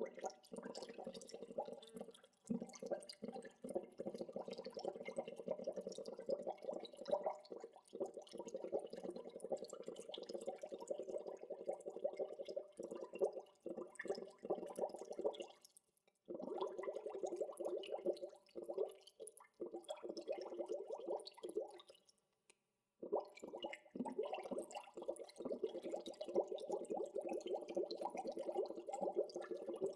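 Gentle bubbling water: a steady stream of small bubbles popping. It breaks off briefly about halfway through and again about three quarters through.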